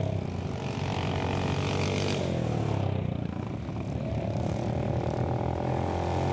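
Racing lawn mower engines running hard, a buzzing engine note that drops in pitch a couple of seconds in, then climbs again.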